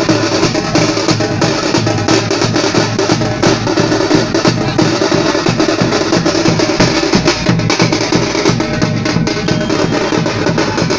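Loud music carried by fast, dense drumming.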